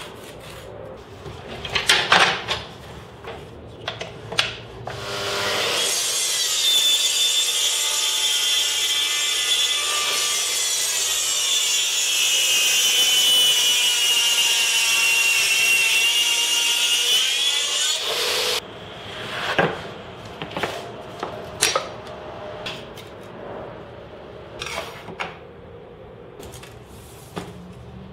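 Makita plunge-cut track saw running along its guide rail and cutting through a board for about twelve seconds. Its motor whine sags in pitch under load partway through the cut, recovers, and stops abruptly. Scattered knocks and clicks come before and after the cut.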